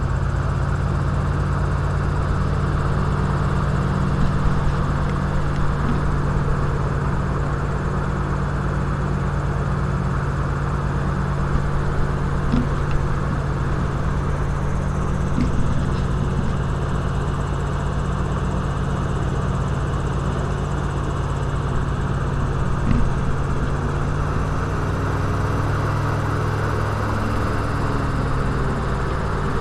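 Airboat's engine and aircraft-type propeller running steadily under way, a loud drone with a rushing noise over it; the pitch shifts slightly about two-thirds of the way through.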